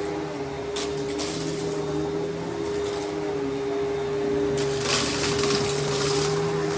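Riccar Vibrance upright vacuum cleaner running with a steady motor hum, its high airflow hiss swelling in patches, loudest about five seconds in.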